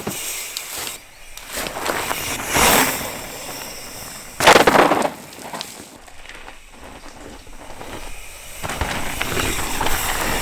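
Mountain bike tyres crunching and skidding over a loose, stony dirt trail, with irregular crackling surges. The loudest skids come about two and a half and four and a half seconds in.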